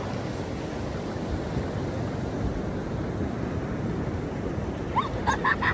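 Ocean surf washing onto the beach with wind buffeting the microphone, a steady rush; a few short high cries come near the end.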